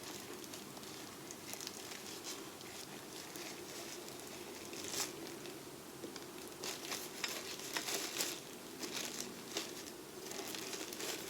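Small plastic baggie crinkling and rustling as it is worked open by hand, in irregular crackles that grow busier about halfway through.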